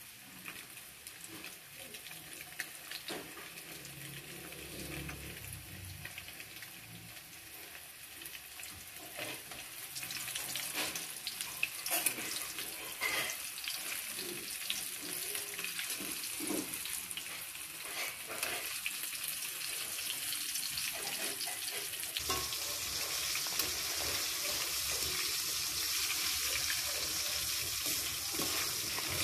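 Food sizzling in hot oil in a metal wok while a metal spatula stirs it, with scattered clicks and scrapes of the spatula on the pan. The sizzle gets louder about a third of the way in and again later on.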